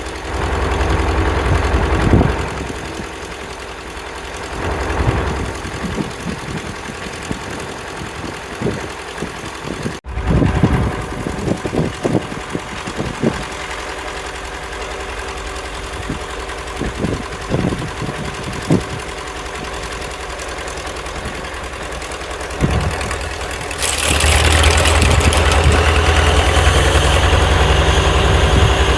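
Engine idling steadily with scattered short knocks. There is a brief break about ten seconds in, and from about 24 seconds in it runs louder with a higher steady whine added.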